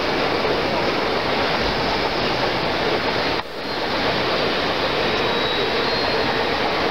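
Steady rumbling, hissing din with no clear tones from an O-scale model Southern Pacific diesel switcher running with its boxcars. The sound dips briefly about halfway through.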